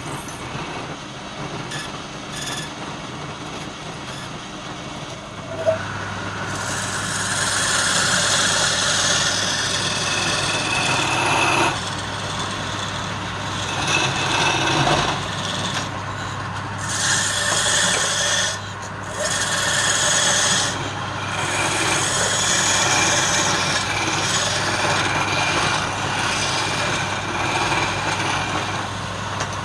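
Wood lathe running, with a turning tool scraping and cutting into the spinning wood in long passes. Each pass breaks off briefly several times. The steady hum of the lathe runs underneath throughout.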